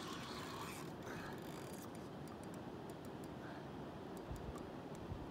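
Faint, irregular clicking from a spinning fishing reel under load while a hooked sturgeon pulls against the line. Underneath is a steady low outdoor rush, with a couple of dull low thumps near the end.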